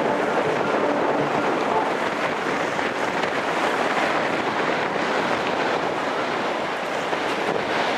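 Wind rushing across the microphone together with the wash of water, a steady rush of noise.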